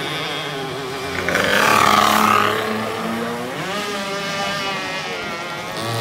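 Racing VéloSoleX mopeds' small 50 cc two-stroke roller-drive engines buzzing past one after another. The loudest pass comes about two seconds in, and a second engine rises in pitch as it accelerates in near the end.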